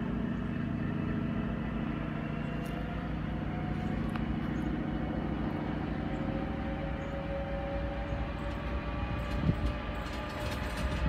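DB class 232 'Ludmilla' diesel locomotive's V16 engine working under load as it hauls a heavy timber train: a steady deep engine drone whose pitch rises slowly. A few sharp knocks come near the end.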